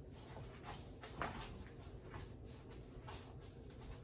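Faint rustling of a cotton T-shirt being pulled off over the head, with a louder brush of cloth about a second in.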